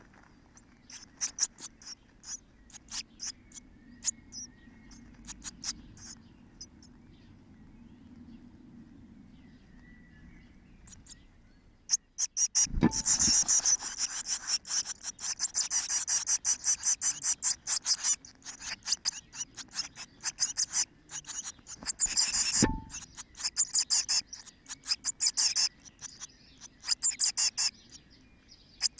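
Blue tit nestlings, 13 days old, cheeping in the nest box: scattered thin cheeps at first, then about halfway through a dense, high-pitched begging chorus as a parent arrives with food, going on in bouts afterwards. Two dull thumps, about ten seconds apart, come from the adult landing in the box.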